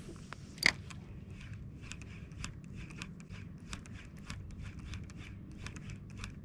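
Spinning reel: the bail snaps shut with a sharp click just under a second in, then a run of small, fairly regular clicks, three or four a second, as line is cranked in.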